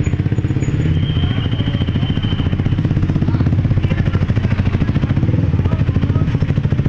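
Motorcycle engine idling close by with a steady, rapid throb.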